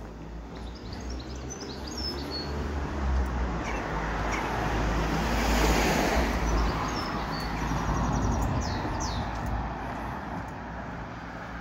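A motor vehicle passing along the street, its engine and tyre noise swelling to a peak about halfway through and then fading away. Small birds chirp briefly over it, near the start and again past the middle.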